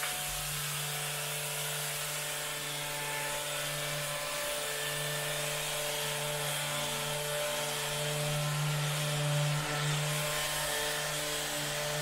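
Handheld corded electric massager running steadily while pressed against a person's upper back: a constant motor buzz with a slight waver in pitch.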